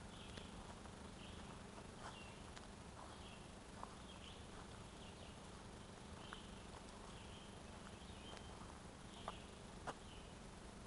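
Faint woodland ambience: a high chirping call repeats every second or so over a steady hiss, with a few small clicks, the two loudest near the end.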